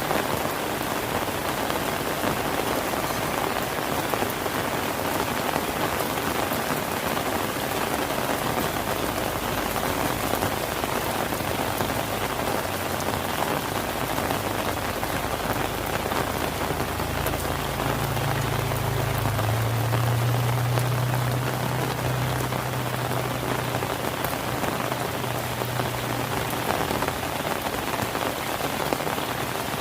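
Steady rain falling and pattering on surfaces. About halfway through, a low hum joins in for roughly ten seconds, then fades away.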